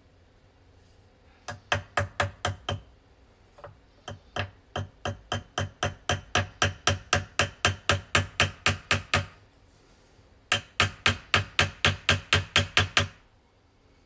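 Small hammer tapping a brass pin into the wooden handle of a marking knife: quick, even taps at about four a second, in three runs with short pauses between.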